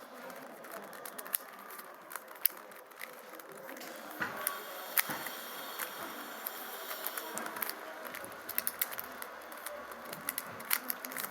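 Plastic Rubik's cube being turned with one hand: irregular clicking and clacking of the layers as they snap round, coming faster and thicker in the second half.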